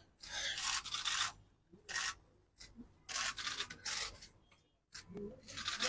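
A man's uneven breaths and sniffs close to the microphones as he breaks down crying: several short noisy breaths with silent gaps between them.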